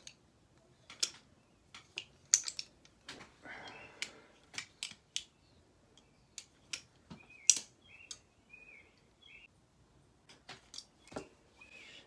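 Balisong trainer (practice butterfly knife) being flipped and handled: irregular sharp metallic clicks and clacks as the handles swing and strike the blade and spring latch. The clicks are scattered unevenly throughout.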